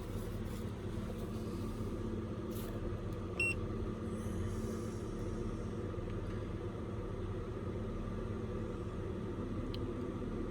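A single short electronic beep from a diagnostic scan tool about three and a half seconds in, over a steady low background hum, with a faint click near the end.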